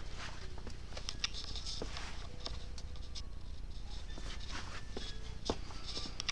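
Handling noise from a handheld camera being moved about: scattered light clicks and rustles over a steady low hum.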